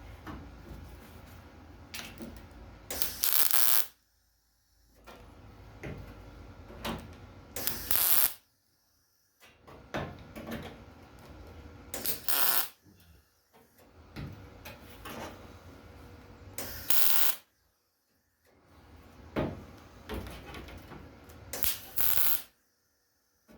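Welder laying tack welds on a sheet-metal patch panel: five brief bursts, each under a second, about four to five seconds apart, with quieter handling noise between them.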